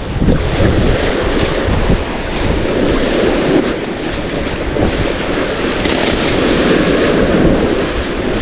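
Wind buffeting the microphone over the wash of sea waves, a loud, gusty rumble.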